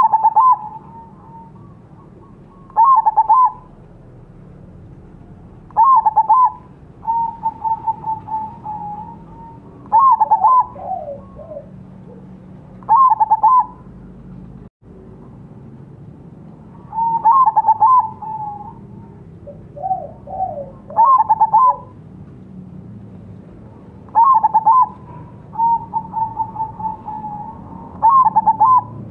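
Crossbred zebra dove (perkutut) cooing: a loud short phrase of bubbly coos repeated about every three to four seconds, with softer trilling coos in between.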